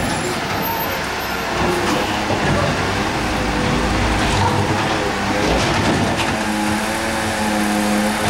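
Garbage truck engine running as the truck pulls forward, a steady drone with a humming tone that strengthens from about six seconds in.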